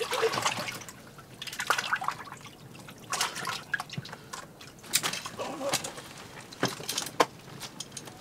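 Water splashing and dripping in an ice-fishing hole as a lake trout is handled and landed by hand, in irregular splashes and sharp drips.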